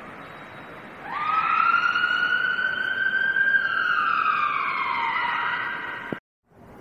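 Ambulance rapid response car's siren starting up over traffic noise in a slow wail: its pitch rises quickly, holds, falls slowly and begins to rise again, then cuts off abruptly near the end.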